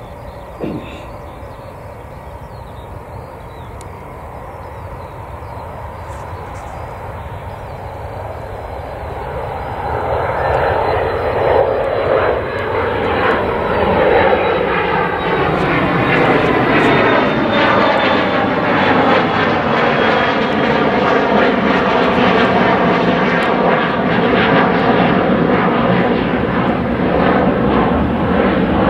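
Jet airliner engines, growing louder over the first ten seconds, then a loud, steady engine noise with a slowly falling, phasing sweep as the aircraft passes close by.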